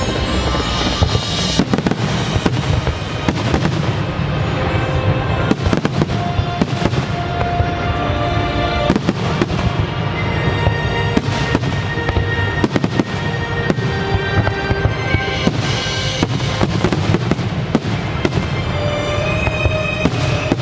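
Fireworks finale: a dense run of bangs and crackling bursts, many in quick succession, over a loud music soundtrack with held notes.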